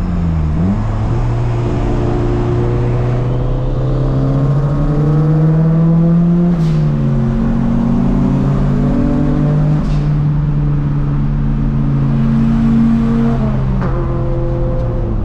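Turbocharged SR20DET four-cylinder of a 1990 Nissan Silvia S13, heard from inside the cabin while driving at highway speed. The engine note dips briefly near the start, then climbs slowly. It drops back about seven seconds in and holds steady for the rest.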